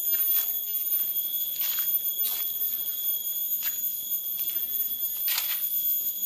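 Cicadas singing a steady, high-pitched whine, with irregular short rustles of footsteps on a dirt forest path.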